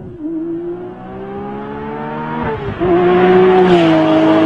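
Porsche 997 GT3 with an AEPerformance tune, its flat-six engine accelerating hard toward and past the listener. The engine note climbs, drops at an upshift about two and a half seconds in, then comes back louder and higher and sags a little in pitch as the car goes by.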